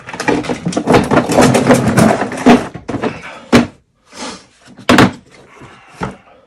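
Hard-plastic tool case being handled, clattering and knocking for about three seconds, then a few separate sharp clicks as its latches are snapped open.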